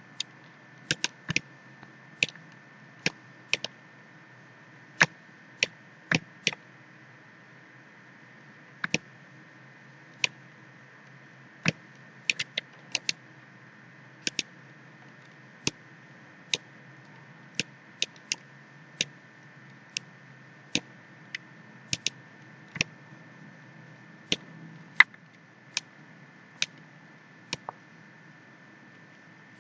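Computer mouse clicking at an irregular pace, single clicks and quick pairs, over a faint steady hiss with a thin high whine.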